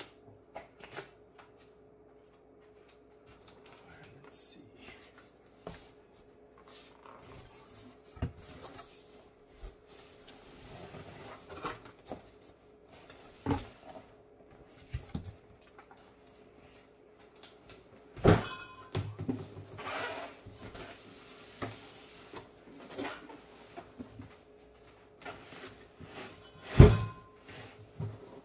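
Cardboard packaging being handled as a subwoofer is unpacked: rustling and scraping of cardboard and a fabric wrap, with scattered knocks. The loudest thumps come about 18 and 27 seconds in.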